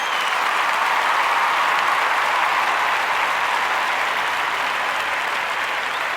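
Audience applauding steadily at the end of a song, the clapping easing off slightly toward the end.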